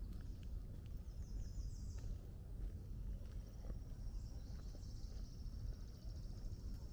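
Footsteps on a gravel woodland path over a low rumble of wind on the microphone. A small bird sings overhead: a short rising run of high notes about a second in, then a long, even, high trill from the middle on.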